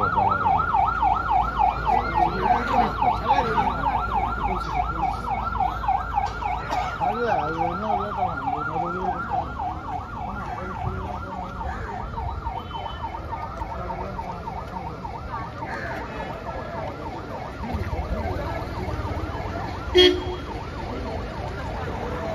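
Police escort siren on a VIP convoy in a fast yelp, the pitch sweeping up and down about five times a second, loud at first and fading away over roughly the first half. Traffic noise follows, with a brief sharp beep near the end as the escort car comes past.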